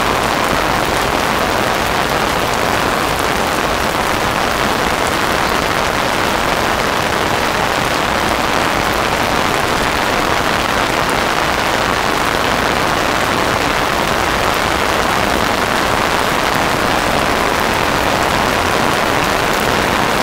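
Heavy rain falling, a steady dense hiss that keeps an even level throughout.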